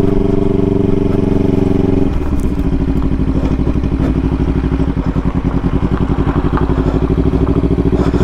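Motorcycle engine running as the bike rides along. About two seconds in, its steady even note drops to a lower, rhythmically pulsing beat, as when the throttle is rolled off.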